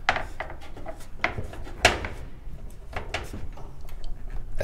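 Solar panel cables being pulled by hand along the van's metal roof channel: scattered knocks and rubbing against the sheet metal, the sharpest knock about two seconds in.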